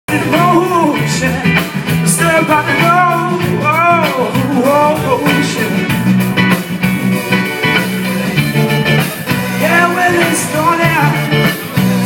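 Live band playing on an amplified stage: drums and a repeating bass line under electric guitar, with a melody that slides up and down in short phrases.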